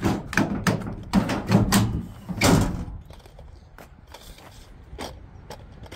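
Pickup truck tailgate being unlatched and let down open: a quick run of latch clicks and metal clunks over the first three seconds, the loudest as it drops to its stops, then a couple of faint knocks.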